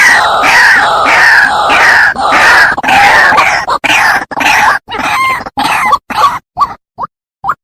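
White-breasted waterhen calling: loud, harsh, repeated 'ruak-ruak' croaks, a falling note about every half second, breaking after about four seconds into shorter, separated calls that stop just before the end.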